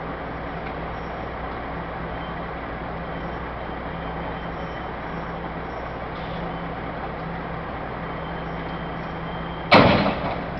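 A heavy vehicle's engine running steadily with a constant low hum. Near the end comes a sudden loud noise that dies away within about a second.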